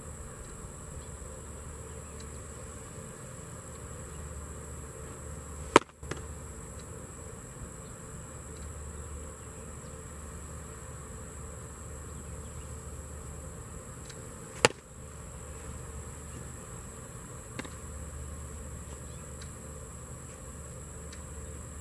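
Baseball smacking into a catcher's mitt twice, two sharp pops about nine seconds apart, over a steady high buzz of insects.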